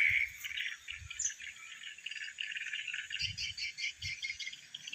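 Insects chirping in a rapid pulsing run, with bird chirps, a few higher ones near the end. A few soft low thumps come through under it.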